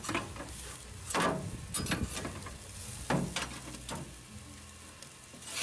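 A metal utensil knocking and scraping on a charcoal grill's grate, three short strokes about a second apart, over a low hum that stops near the end.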